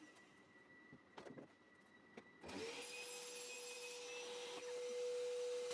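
A few light knocks, then an electric power tool motor spins up about two and a half seconds in and runs steadily at one pitch.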